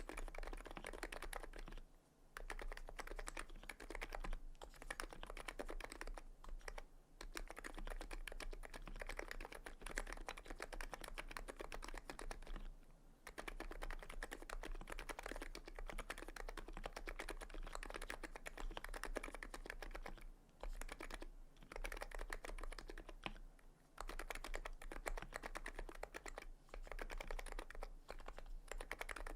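Fast continuous typing on a TX66C R2 electro-capacitive (Topre-style) keyboard with KBDfans EC hipro Renso keycaps and 45 g springs, broken by a few brief pauses. The keys give soft, even clacks.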